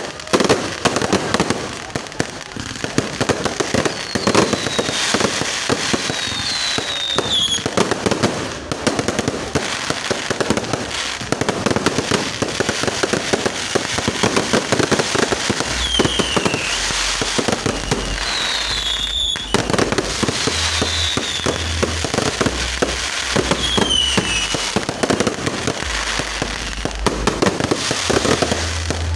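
Fireworks going off: dense, continuous crackling and popping of exploding fireworks, with several short falling whistles.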